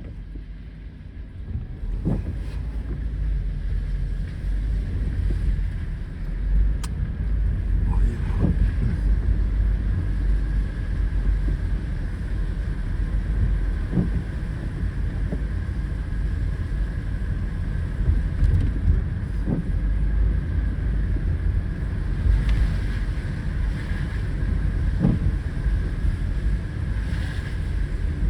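A car being driven, heard from inside the cabin: a steady low rumble of engine and road noise that gets louder about two seconds in, with a few short thumps every several seconds.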